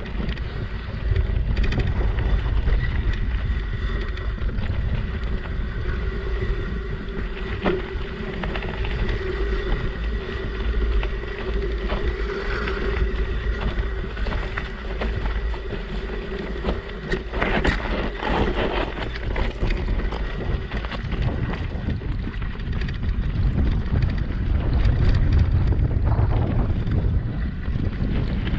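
Wind buffeting an action camera's microphone as a mountain bike rides a dirt and gravel single track. Tyres crunch, and the bike rattles and knocks over the bumps, with a burst of sharp knocks a little past the middle.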